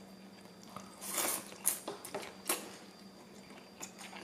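Close-up wet eating sounds of pad thai rice noodles being slurped and chewed, with a short slurp about a second in and a few sharp clicks after it.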